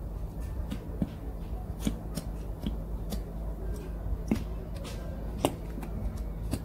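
Plastic squeeze bottle of aloe vera gel crackling and clicking in the hand as it is squeezed, the thick gel slow to come out: irregular sharp clicks over a low steady hum.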